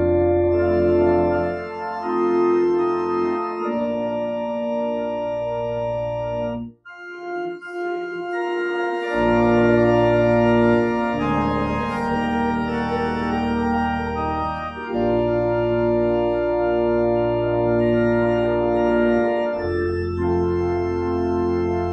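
Church organ playing slow held chords over a deep pedal bass that drops out and returns between phrases, with a short break about seven seconds in.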